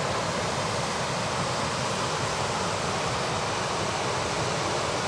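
Steady rush of water pouring over a dam spillway, an even roar with no breaks.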